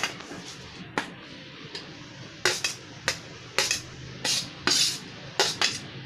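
A spoon clinking and scraping against dishes as chopped onion is tipped into a glass bowl of raw eggs: a couple of single clinks, then from about two and a half seconds in a run of short scrapes and knocks about every half second.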